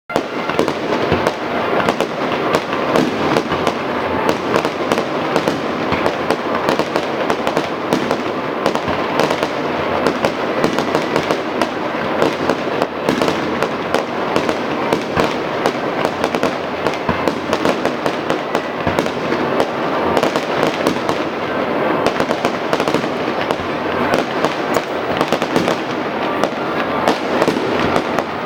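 Fireworks display: a dense, unbroken stream of bangs and crackling, with no pause between them.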